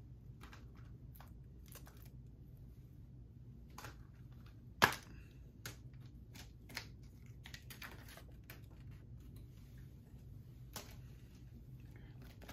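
Scattered plastic clicks and taps as a Blu-ray case is handled and opened, with one sharp snap about five seconds in.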